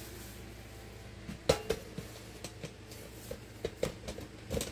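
A few light knocks and clinks of a camera being handled and set down among dishes on a kitchen counter, the sharpest pair about a second and a half in and a small cluster near the end.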